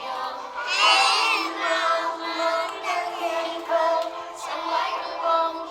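Young children singing a song together along with music.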